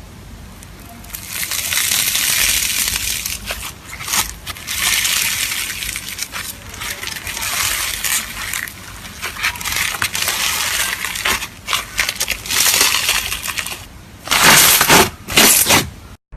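Slime being pressed and squished by hand, giving a run of crackling, crunching sounds in waves, with two louder bursts near the end.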